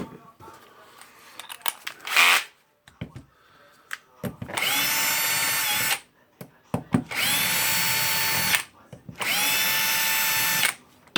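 Electric drill-driver running in three separate bursts of about a second and a half each, each spinning up to a steady pitch and winding down, as used to work the screws while stripping down a rotary hammer. A brief louder knock comes about two seconds in.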